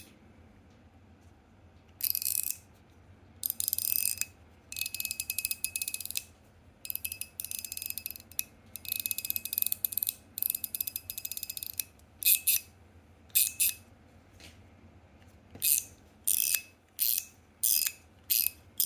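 Stainless steel and PEI fidget slider being slid back and forth: runs of rapid high-pitched clicking, then, in the last few seconds, single sharp clicks about half a second to a second apart.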